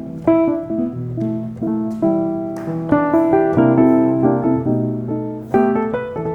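Background music: solo piano playing a gentle melody over chords, with notes struck roughly every half second.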